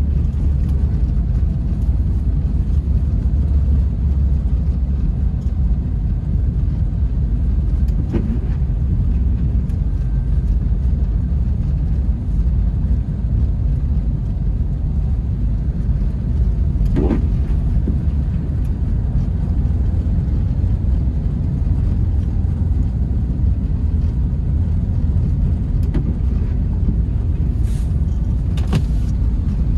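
Inside the cabin of a Smart Fortwo 451 CDi on the move: its small three-cylinder diesel engine and tyres on a snow-covered road make a steady low rumble. A few brief, sharper sounds break in now and then.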